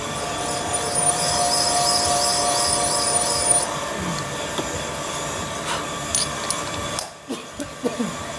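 Valve-seat cutting machine machining a seat in an Isuzu 4BD1 diesel cylinder head: a steady machine run with a high, even metal-cutting squeal that stops a little before halfway, followed by a few light metal clinks near the end.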